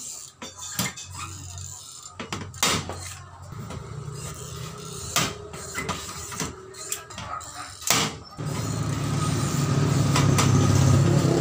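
Hand pop-rivet tool clicking and snapping as it sets rivets through the handle bracket of a galvanized sheet-metal toolbox, several sharp clicks a second or more apart. About three-quarters of the way in, a motor vehicle engine comes in, steady and louder than the clicks.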